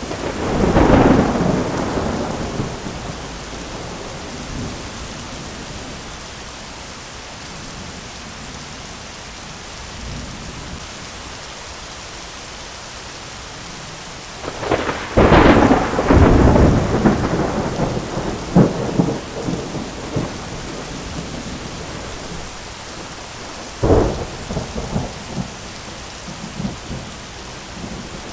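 Thunderstorm: steady heavy rain with thunder. A loud peal rolls off about a second in, a long crackling peal with several cracks comes just past halfway, and a sharp crack with rumbling follows near the end.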